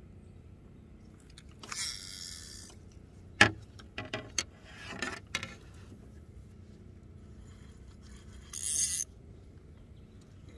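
Clicks and knocks from a spincast fishing rod and reel being handled, the loudest a sharp click about three and a half seconds in, with two short hissing rushes, one near the start and one near the end.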